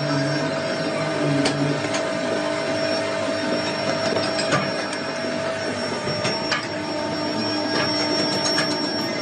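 Steady drone of running workshop machinery, with a few sharp metal clinks scattered through it as steel mold boxes and cylinder cores are handled.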